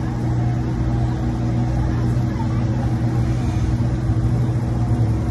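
Steady low hum of an idling engine close by, with car traffic passing through a city intersection.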